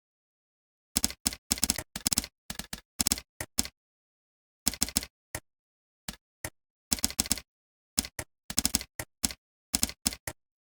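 Typing on a computer keyboard: short bursts of rapid keystrokes separated by pauses, starting about a second in.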